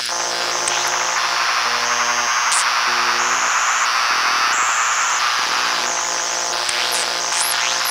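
Electromagnetic noise of four circuit-bent hard drive motors, pushed by control voltage and picked up by induction coils. A dense hiss sits under steady low hums, and high whines switch on, off and step in pitch every half second or so. Quick repeated high swoops come in near the end.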